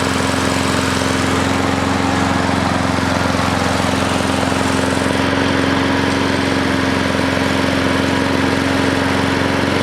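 Cub Cadet lawn mower's 173cc OHV single-cylinder engine running steadily at a constant speed, on a new carburetor with a replacement spark plug fitted.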